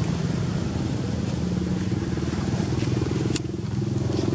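A small engine idling steadily, a low even hum, with a single sharp click about three and a half seconds in.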